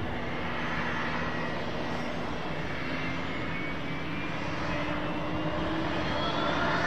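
Business jet's twin turbofan engines running, with a whine that rises slowly in pitch as the engines spool up, growing a little louder near the end.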